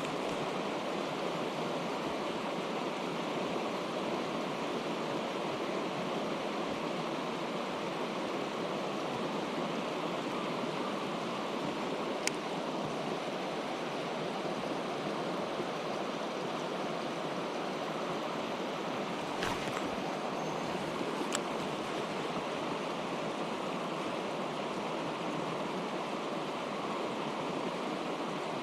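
Mountain stream water rushing steadily, with a few brief sharp clicks about twelve, nineteen and twenty-one seconds in.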